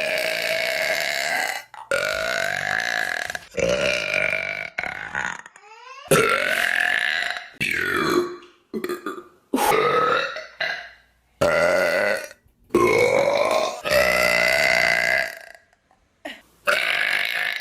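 Deliberate, loud human burps in quick succession: about a dozen drawn-out belches, most lasting a second or more, their pitch sliding up or down, with short gaps between them.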